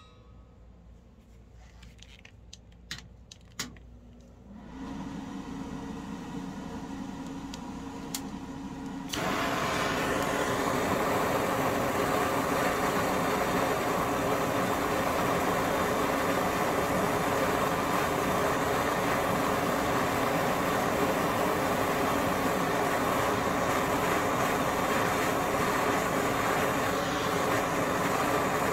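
A few light clicks, then a gas torch flame hissing: a quieter hiss starts about five seconds in and jumps to a loud, steady hiss about nine seconds in.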